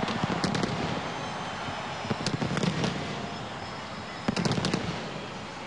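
Fireworks bursting over a stadium: scattered sharp bangs and crackles over a steady wash of crowd noise, with a quick cluster of bangs a little after four seconds in.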